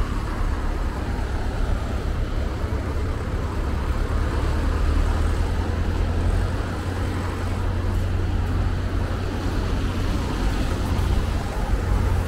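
Steady city road traffic noise with a strong deep rumble, heard from a moving bicycle.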